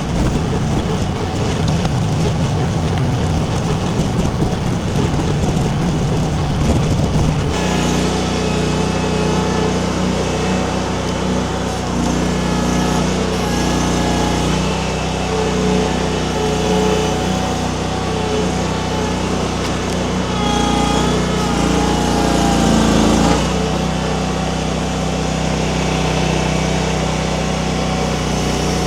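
Engine of a mini skid steer running continuously while it drives a hydraulic wood splitter attachment. Its sound changes abruptly about seven seconds in to a steadier, more tonal run, and its pitch wavers for a few seconds near the two-thirds mark.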